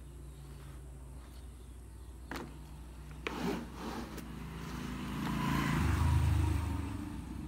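A motor vehicle passing by, its engine growing louder to a peak about six seconds in and then fading. Before it come a couple of short clicks and a scrape from the mop being moved in its plastic wringer bucket.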